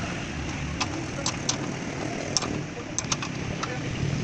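A steady engine-like rumble with a number of short, sharp clicks or taps scattered irregularly through it.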